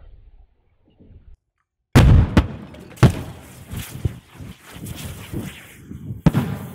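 Butane aerosol cans exploding: a sudden loud bang about two seconds in, then several more sharp bangs and smaller pops over the next few seconds as further cans burst.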